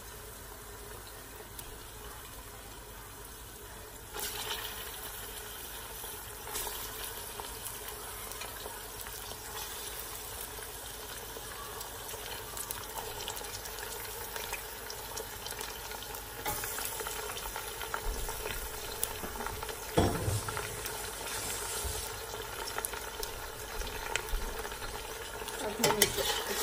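Raw mutton sizzling in hot oil with fried onions and whole spices in a stainless steel pressure cooker, a steady frying hiss that gets louder about four seconds in. Toward the end a metal spoon scrapes and clinks against the pot as the meat is stirred.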